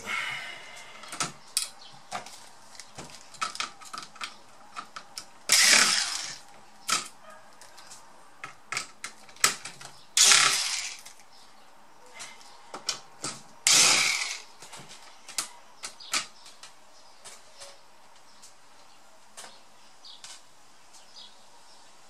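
Cordless electric screwdriver running in three short bursts, roughly four seconds apart, unscrewing the screws of a laptop's chassis. Light clicks and taps of small screws and parts are heard between the bursts.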